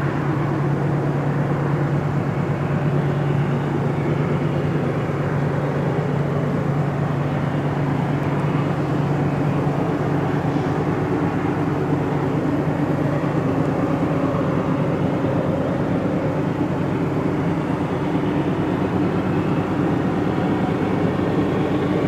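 Steady low engine drone with a constant hum that holds unchanged throughout.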